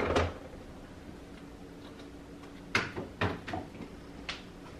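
Knocks and clunks at an open refrigerator as a lidded pitcher is set onto a fridge shelf and shifted into place: one thump at the start, then a quick run of three or four clunks about three seconds in, and one more knock near the end.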